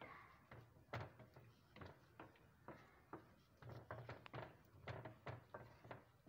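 Wooden spatula scraping and knocking against a frying pan while stirring food, an irregular run of small clicks, scrapes and soft thuds.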